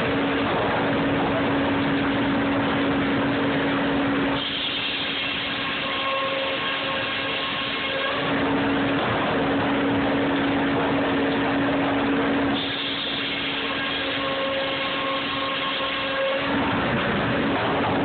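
Sawmill circular saws and a belt conveyor running while boards feed through them: a loud, continuous machine din with a steady hum, changing in character every four seconds or so as each board passes the blades.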